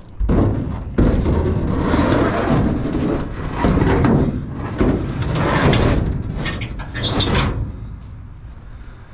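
Scrap metal being handled and dragged: a long, loud scraping and rattling with several knocks that stops about seven and a half seconds in.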